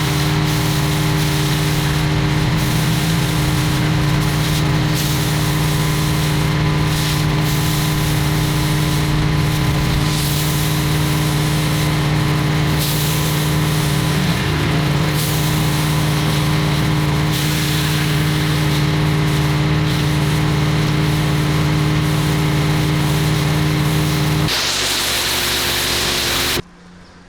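Pressure washer running steadily with its water jet spraying. Near the end the motor hum stops, a short rush of spray-like noise follows, and then the sound cuts off suddenly.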